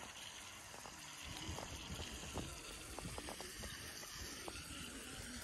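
Small riser-mounted field sprinklers spraying water, a steady faint hiss, with a few light ticks in the middle.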